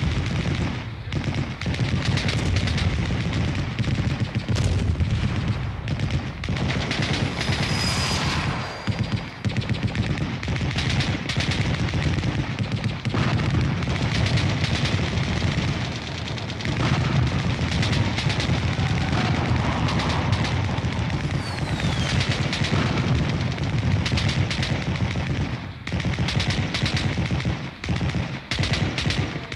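Sustained automatic gunfire: long, nearly unbroken bursts of machine-gun fire with brief pauses.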